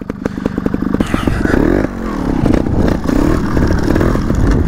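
300 cc two-stroke dirt bike engine picking up from low revs, its separate firing pulses audible at first, then revving up and down over and over as the bike rides across rough grass.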